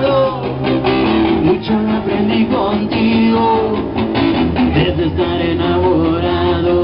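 Live rock band playing a song: electric bass and guitar through amplifiers over a drum kit, with a sung vocal line.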